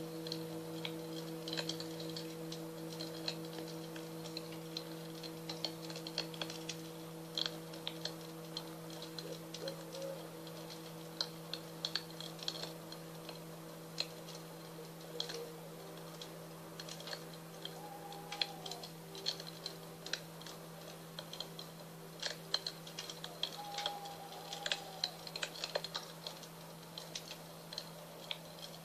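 Singing bowls ringing with steady low tones that waver slightly and slowly fade, over the irregular crackling and popping of a wood fire.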